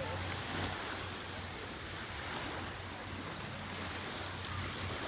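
Ocean surf washing on a beach: a steady, even rush of waves.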